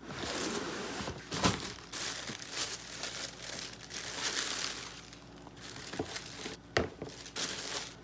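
Tissue paper crinkling and rustling as sneakers are unwrapped from a cardboard shoebox, with a few sharp knocks, the loudest near the end.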